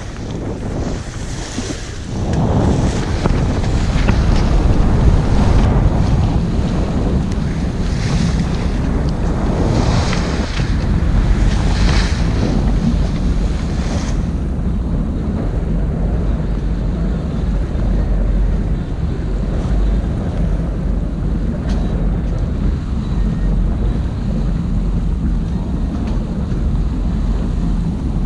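Sailboat under sail: heavy wind rumble on the microphone over water rushing and hissing along the hull and through the wake. In the first half the hiss surges every couple of seconds. About halfway through it turns steadier and duller.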